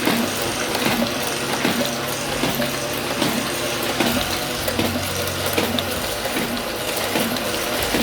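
Duplo Offset 3100 small offset printing press running with its ink rollers turning: a steady mechanical whir with an even clack about twice a second from the machine's cycle.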